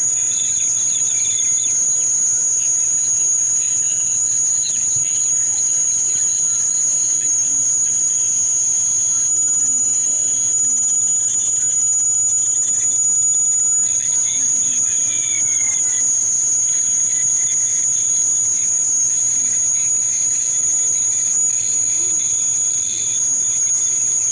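A continuous high-pitched whine held at one steady pitch, like an insect's trill.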